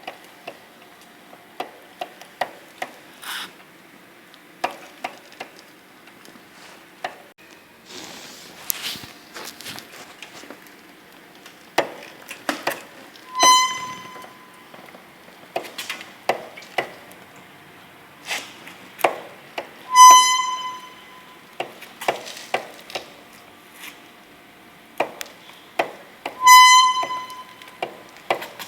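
Front sprocket and chain of a Hyosung GV250 Aquila motorcycle, pushed slowly, giving scattered clicks and knocks and three loud, short, pitched squeaks about six and a half seconds apart. The cause turned out to be stiff, seized chain links from lack of lubrication.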